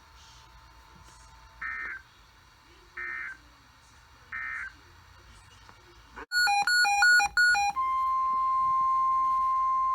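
NOAA Weather Radio alert signalling: three short end-of-message data bursts about a second and a half apart close the previous warning. After a pause comes a loud second-long burst of rapidly switching electronic tones, then the steady 1050 Hz Warning Alarm Tone starts near the end and holds.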